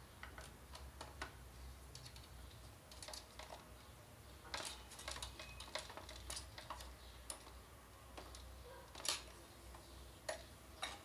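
Hand screwdriver turning a small screw into a projector's plastic chassis: faint, irregular clicks and ticks of the tool tip and screw.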